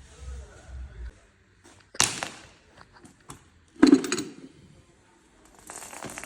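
Tools or parts being handled during suspension work: two sharp knocks about two seconds apart, the second the louder, then a short scraping rustle near the end.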